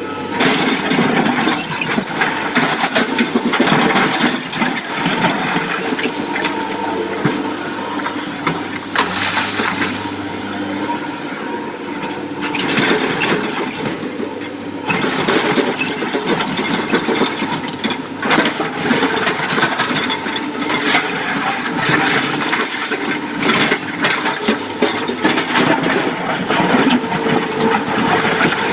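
Excavator engine running steadily while broken rock clatters and crashes continuously, as stones are tipped from the bucket into a dump truck's steel bed.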